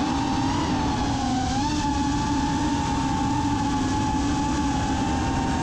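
A 5-inch FPV racing quadcopter's four brushless motors (T-Motor Velox 2306, 1950 kV, on a 6S battery) and propellers whine at a steady cruising throttle. The pitch holds nearly level, with a slight dip about a second and a half in.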